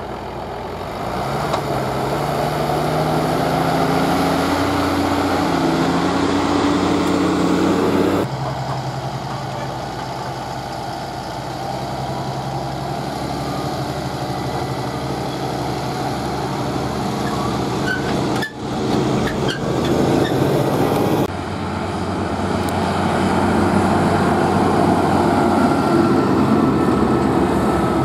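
Farm tractor's diesel engine running as it pulls a grain trailer, its pitch rising and falling as it works. The sound changes abruptly about eight, eighteen and twenty-one seconds in.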